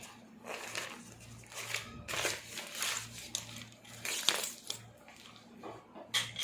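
Rustling and crinkling of fishing-rod packaging being handled, in irregular bursts, with a sharp click about four seconds in.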